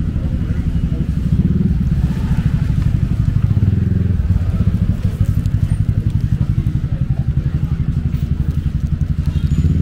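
An engine running close by, a steady, evenly pulsing low rumble, with faint voices in the background.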